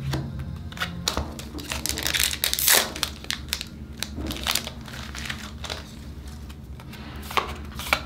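Digimon trading cards handled and flipped through by hand: a run of quick clicks and slides as cards are pulled from the stack, with a longer rustling swish about two to three seconds in.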